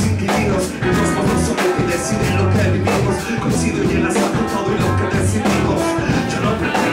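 Live band with saxophones and electric guitar playing over a steady beat.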